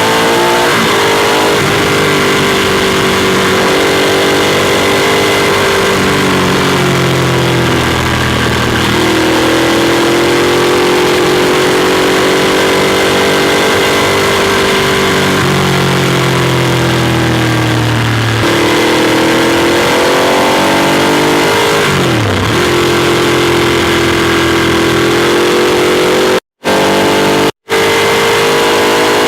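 Ducati Monster 821's Testastretta V-twin engine heard onboard while riding, its pitch repeatedly climbing as it accelerates and dropping back between gears and when easing off, with a quick drop and rise about two-thirds of the way through. The sound cuts out twice briefly near the end.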